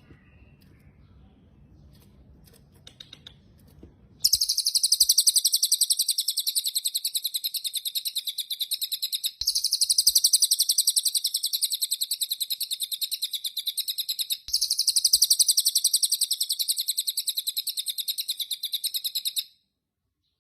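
A cililin bird calling in a fast, unbroken run of high, rapidly repeated chirps. The run starts about four seconds in, breaks off twice for a moment, and stops shortly before the end.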